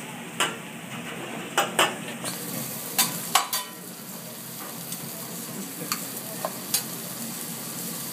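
Eggs and fried rice frying with a steady sizzle on a hibachi steel griddle, while metal spatulas scrape and clack against the plate, with sharp clacks every second or so and a cluster of three about three seconds in.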